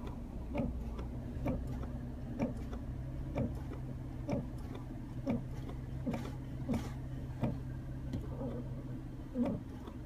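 Slight click from the centre console of a 2010 Chrysler 300, repeating about once a second over a steady low hum in the cabin. The clicking is still there after a repair for it.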